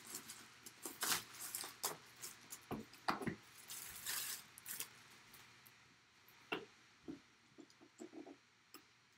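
Hands handling a cardboard box and its clear plastic wrapping: irregular rustling and crinkling with light taps, and a sharp tap about six and a half seconds in.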